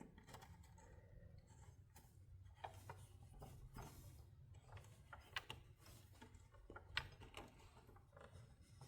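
Near silence with a few faint scattered clicks and light rubbing, from a thin electrical wire being handled and tucked behind a miter saw's power cord.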